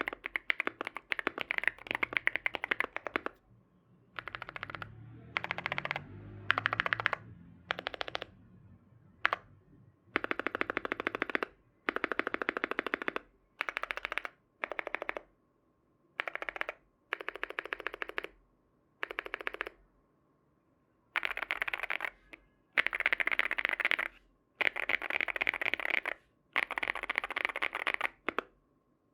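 Typing on a Sugar65 mechanical keyboard with factory-lubed Tecsee Ice Mango tactile switches: runs of fast key clicks lasting a second or two each, broken by short pauses.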